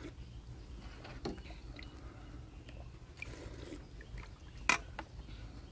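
Quiet eating sounds: instant-noodle broth sipped from a metal spoon, with the spoon scraping and knocking in a stainless steel bowl and one sharp clink near the end.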